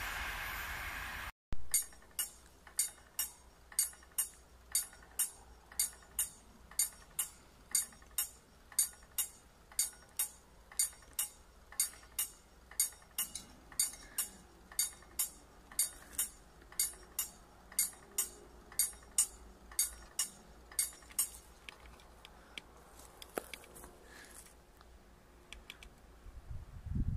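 A passing train's rail noise, cut off after about a second, then a level-crossing warning bell striking steadily at nearly two strikes a second, which stops abruptly about three-quarters of the way through.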